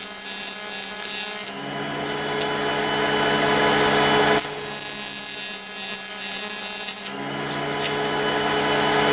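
AC TIG welding arc on aluminum: a steady electric buzz and hiss. Its tone shifts every few seconds as the heat is varied.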